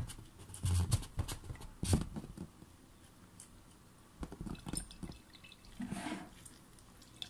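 Orange juice dripping and splashing from a hand-squeezed orange half into a glass blender jar, with scattered small taps and squelches of fruit and knife.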